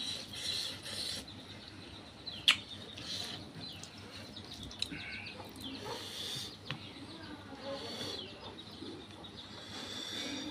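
Small birds chirping again and again in the background, with one sharp click about two and a half seconds in, over soft sounds of rice and pork curry being mixed by hand and eaten.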